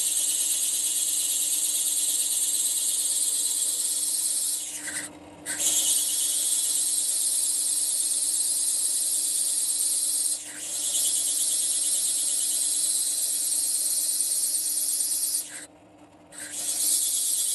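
Drill press with a water-fed core bit grinding into a jasper pebble: a steady, high-pitched grinding hiss over a low motor hum. The grinding stops briefly about five seconds in and again near the end, with a short dip about ten seconds in.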